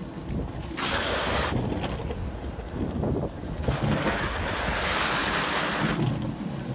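Longboard wheels rolling over pavement with a steady low rumble, and wind buffeting the microphone in two stretches of louder hiss, one briefly about a second in and a longer one from near the middle almost to the end.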